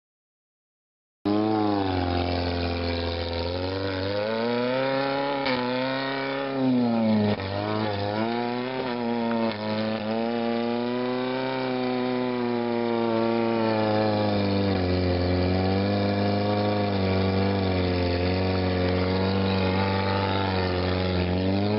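Rock-crawler buggy's engine revving hard under load as it climbs a steep rocky slope, the revs rising and falling over and over. It starts about a second in.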